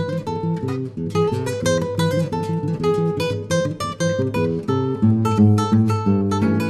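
Background music: acoustic guitar playing a quick run of plucked and strummed notes.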